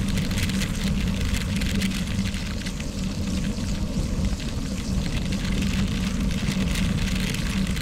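Wind rushing over a bicycle-mounted action camera at about 24 mph, with gravel-bike tyres crackling over a loose gravel road.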